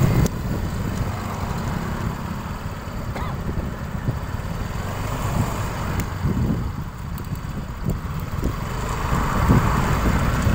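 Wind buffeting the microphone and road noise from a motorbike ride, a steady low rumble that rises and falls.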